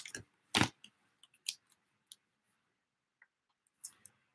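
A few sharp crackles and clicks of plastic and foil card-pack wrappers being handled, the loudest about half a second in, with fainter ones spread out after it.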